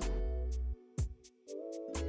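Background music with a beat: deep bass notes, a sharp drum hit about every two seconds, light high ticks and held chords.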